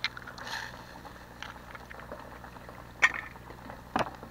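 Eggs being cracked with a knife into a saucepan of hot melted butter: sharp taps on the shell right at the start and twice near the end, over a steady low sizzle from the pan.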